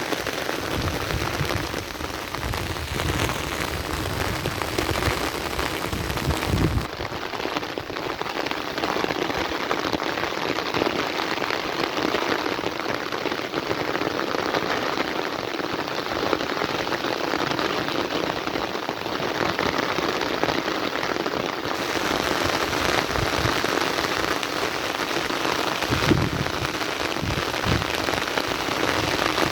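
Heavy rain falling steadily, a dense hiss of drops on surfaces, with low rumbling in the first several seconds and again near the end.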